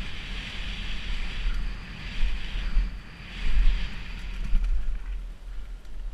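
Wind buffeting a helmet-mounted camera's microphone as a mountain bike, a Kona Process 167, rolls fast down a dirt trail, with a steady rush of tyre and trail noise. The buffeting swells louder about two seconds in and again about three and a half seconds in.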